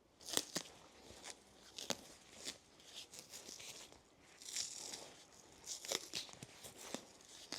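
Faint, irregular clicks and light knocks of metal parts and hand tools being handled, with short bursts of scraping and rustling, during hands-on dismantling of a motorcycle's handlebar controls.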